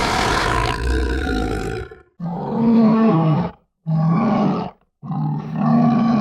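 Bear roaring and growling: a long roar that ends about two seconds in, then three shorter roars with brief silences between them.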